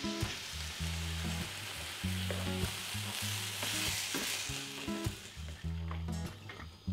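Tomato and aubergine sauce sizzling in a wide pan on a gas hob while a wooden spoon stirs it; the sizzle dies down near the end. Background music with low bass notes runs underneath.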